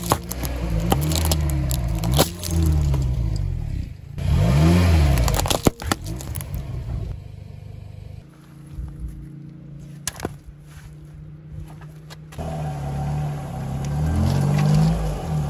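A car tyre rolling over a stack of plastic disposable lighters and crushing them, with crackling and sharp snaps of breaking plastic over the car's engine rising and falling in revs. About halfway it goes quieter with a few single snaps, and near the end the engine revs again as the tyre presses onto a block of jelly.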